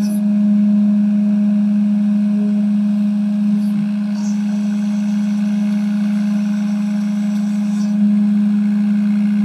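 3018 desktop CNC router's spindle running at steady speed while a quarter-inch end mill cuts a pocket in aluminium plate: a loud, even hum that hardly changes.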